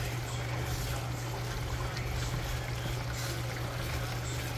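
Thick masala gravy bubbling and sputtering in a steel kadai over a gas flame as a wooden spatula stirs it, with a steady low hum underneath.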